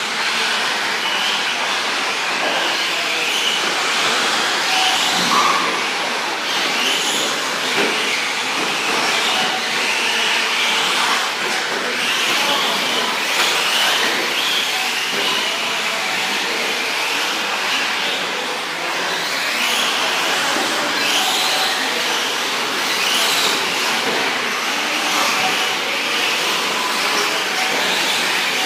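A pack of 1/10-scale electric 4WD short course RC trucks racing on dirt: motors whining up and down over and over as the trucks accelerate and brake, over a steady rushing noise.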